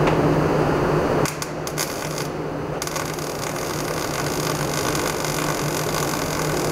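Welding arc on a car's steel body: a few short spurts, then a steady crackling sizzle from the wire-feed welder, over a low steady hum. For about the first second a louder scraping, rubbing sound is heard before it cuts off.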